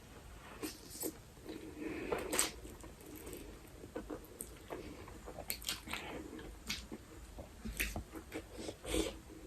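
A person chewing and eating Buldak spicy instant noodles close to the microphone, with irregular soft wet clicks and smacks.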